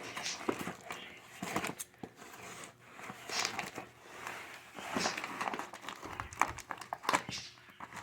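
Packaging crinkling and tearing in irregular rustling bursts with sharp clicks as a parcel is pulled open by hand.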